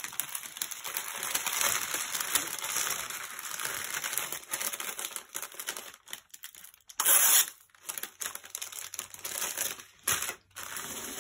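Clear plastic bags crinkling and rustling in the hands as small packets of diamond-painting drills are gathered and pushed into a larger plastic bag. There is a louder, sharper rustle about seven seconds in.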